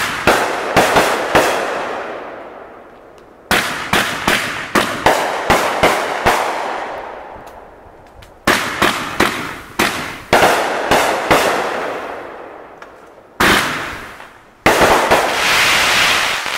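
A 500-gram multi-shot fireworks cake firing in volleys: strings of sharp bangs every four to five seconds, each volley echoing away. A single bang comes before a longer, denser run of reports near the end.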